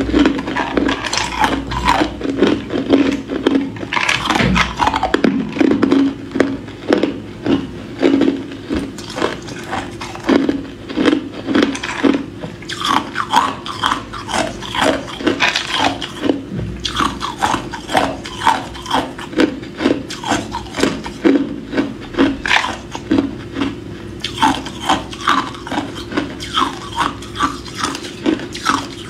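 Hard clear ice cubes bitten and chewed close to the mouth: a steady run of sharp cracks and crunches as the ice breaks between the teeth, settling into about two crunches a second later on.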